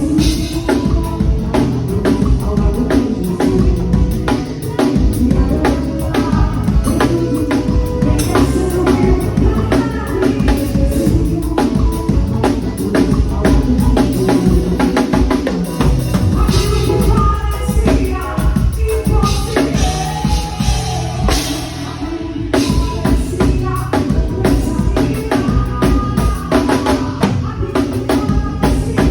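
Live band playing, with the drum kit out front: kick drum, snare and rimshots over bass and other sustained instruments.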